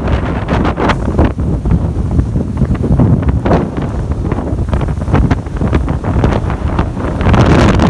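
Strong storm wind buffeting the microphone in gusts, with surf from high waves underneath. It grows louder near the end.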